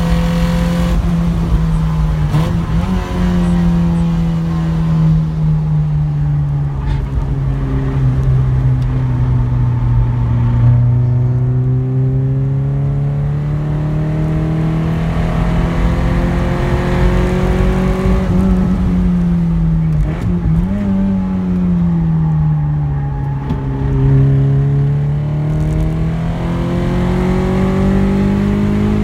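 Nissan SR20DE four-cylinder engine of a B13 Sentra SE-R running hard at track speed. Its pitch rises and falls slowly several times as the revs change.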